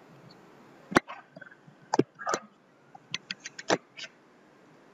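Stylus tapping and clicking on a drawing tablet while dashed lines are drawn: scattered sharp taps, with a quick run of ticks near the end.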